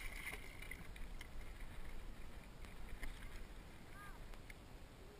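Water lapping against a small boat's hull under a low rumble of wind on the microphone, with a fish splashing at the boat's side right at the start.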